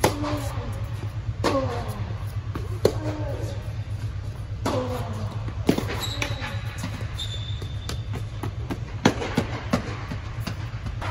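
Tennis rally on an indoor hard court: sharp pops of the ball struck by rackets and bouncing, a second or two apart, over a steady low hum.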